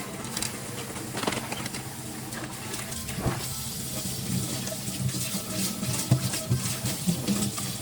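Kitchen tap running into the sink, with a few light knocks about a second and three seconds in.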